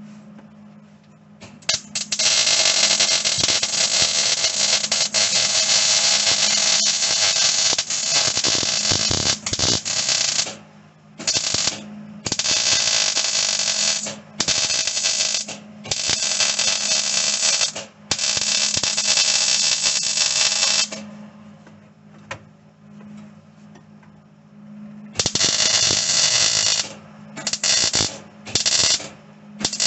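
Wire-feed welder arc crackling as a bead is laid on the sheet-steel floor tunnel: one long run of about nine seconds, then a string of stitch welds a second or two each, a pause of about four seconds, and quicker short stitches near the end. A steady low hum runs underneath.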